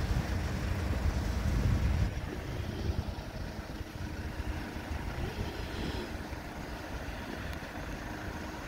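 Kia Bongo III cargo truck's diesel engine running as the truck drives slowly away. A low rumble is loudest for the first two seconds, then drops and stays steady, with some wind on the microphone.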